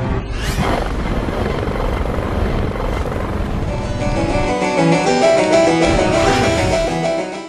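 Dramatic trailer music over a low rumbling noise, with a rising whoosh about half a second in. After about four and a half seconds the rumble drops away, leaving held keyboard-like notes that fade near the end.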